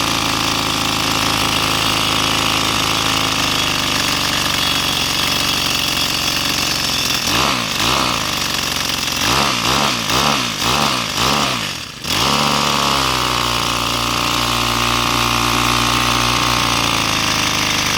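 Two-stroke engine of an overhauled Craftsman string trimmer idling, then revved up and down about five times in a row from around seven seconds in. About twelve seconds in its sound drops away briefly, then it settles back to a steady idle. The engine is running rough at idle, with the carburetor in need of adjustment.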